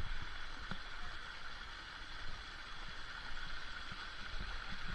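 Steady wash of running stream water in the rain, with a few faint ticks.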